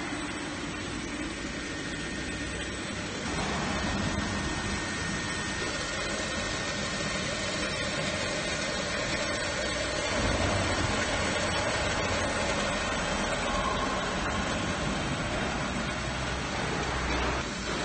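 DK450 label slitting machine running steadily, its rollers feeding a printed web through the slitting knives and onto rewind rolls: an even mechanical running noise that grows louder about three seconds in.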